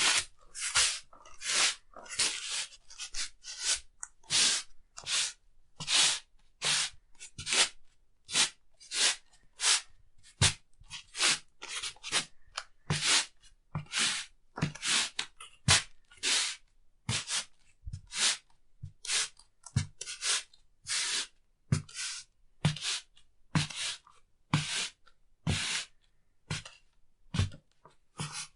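Shuffling footsteps: shoes scuffing and dragging across a floor, one or two short scrapes a second at an uneven pace, many with a soft low thump as the foot lands.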